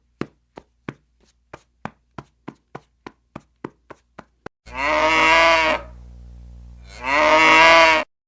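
A cow mooing twice, each call about a second long, after a run of soft, evenly spaced ticks, about three a second.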